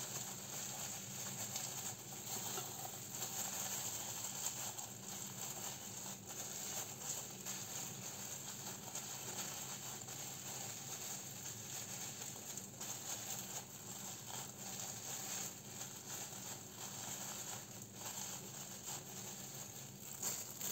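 Thin disposable plastic gloves crinkling and rustling as hands spread and press sticky sushi rice onto a nori sheet on a bamboo rolling mat, with small soft ticks over a steady background hiss.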